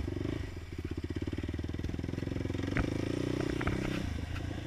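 450 quad's engine running at low, uneven throttle, the note rising briefly about three seconds in and falling off near the end, with a few sharp knocks. The engine is warmed up to operating temperature.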